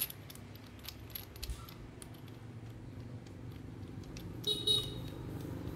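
Light metallic clicks and clinks of a tubular spark plug socket wrench being fitted over the spark plug in a Yamaha Sirius motorcycle's cylinder head, with a sharp click at the start and a brief high ring about four and a half seconds in.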